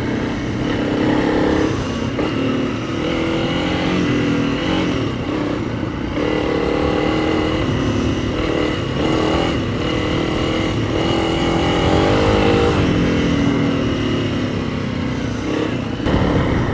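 Motorcycle engine running while riding, its revs rising and falling with throttle and gear changes, over a steady rush of wind and road noise.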